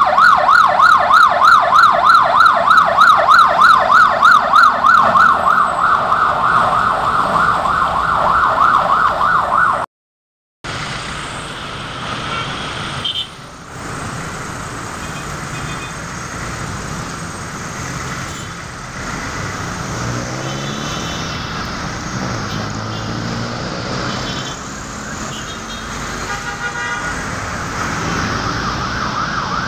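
An emergency vehicle's siren wailing rapidly up and down, several sweeps a second, for about ten seconds. After a brief dropout, steady city traffic noise follows, with short car-horn toots. The siren comes back near the end.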